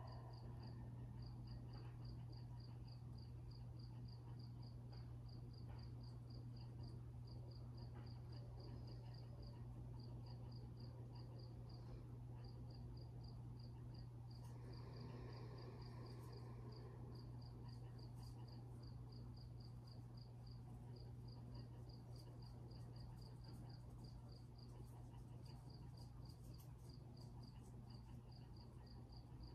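A cricket chirping faintly: short high chirps about four a second, in runs broken by short pauses, over a steady low hum.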